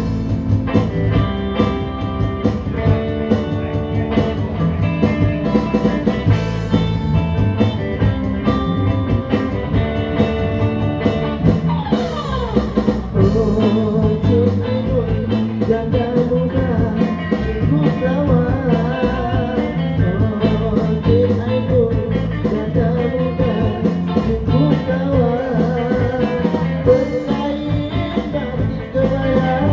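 Live band playing a 1960s-style pop song on electronic keyboard, electric bass guitar and acoustic guitar. A singing voice comes in over the band about halfway through.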